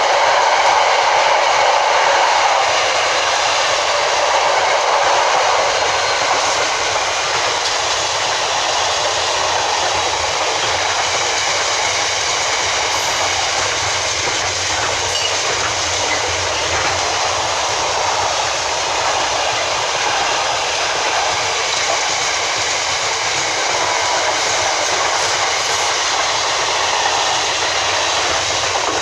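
A freight train hauled by a Class 66 diesel locomotive passing through, its wagons rolling by with a steady rumble and wheel noise, slightly louder in the first couple of seconds.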